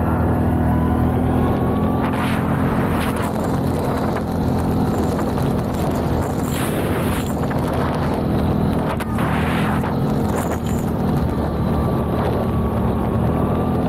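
CFMoto 850 quad's engine running at a steady pace while riding, with a few brief hissy rushes of noise now and then.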